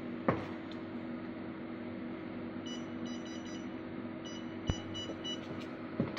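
Nd:YAG laser machine's touchscreen giving a run of short electronic beeps in two clusters in the middle as its settings are tapped. Sharp snaps of the laser firing on a test card come about a third of a second in and again near the end, over the machine's steady hum.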